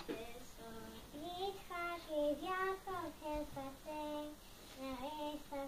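A child singing a slow melody in long held notes that glide between pitches.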